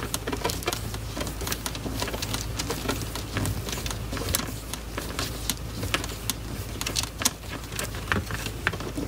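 Irregular light clicks and taps of 3D-printed plastic frame parts being handled and aligned, over a steady low hum.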